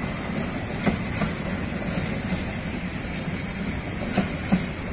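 Coaches of a long-distance passenger train rolling past close by: a steady rumble of steel wheels on rail. Two pairs of sharp clacks, about a second in and again near the end, come as the wheels cross rail joints.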